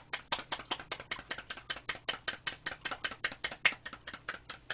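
Two people clapping their hands in a quick, steady rhythm, about seven claps a second.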